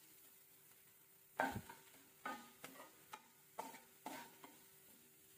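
Metal spoon stirring onions and spices in oil in a frying pan: short scrapes and knocks against the pan, about seven strokes starting a second and a half in, over a faint sizzle of frying.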